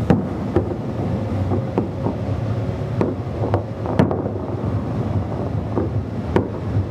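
New Year fireworks going off, irregular bangs about every half second to two seconds, each with a short echoing tail, over steady wind noise on the microphone.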